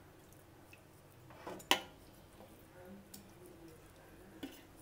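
A steel spoon working marinated chicken in a stainless steel pot: a few soft knocks and one sharp clink of spoon against the pot nearly two seconds in.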